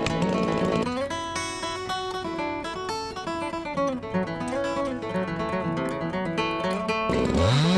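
Steel-string acoustic guitar picked note by note, playing a melody. Near the end an engine revs up, rising in pitch and then holding steady.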